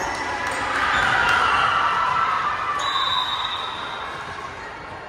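Basketball game in a gym: crowd noise swells about a second in and then fades, with scattered sharp knocks from the ball and shoes on the court. A steady high tone sounds for about a second near the three-second mark.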